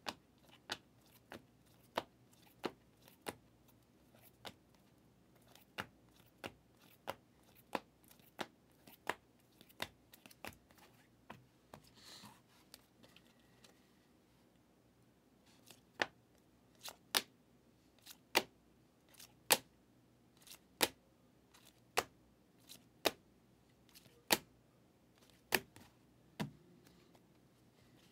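Trading cards in rigid plastic holders being flipped through one at a time, a sharp click with each card, about one every two-thirds of a second. The clicks pause for a few seconds near the middle and come back louder.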